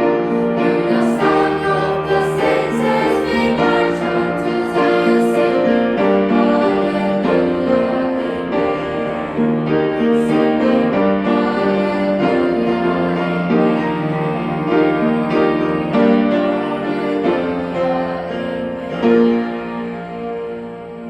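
Worship song with piano accompaniment, its closing section fading out near the end.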